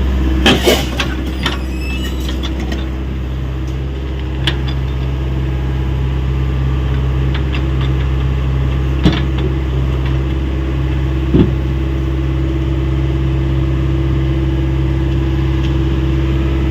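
Hyundai 85A excavator's diesel engine running steadily, with a few sharp metallic knocks, loudest about half a second in and again near the middle and later on.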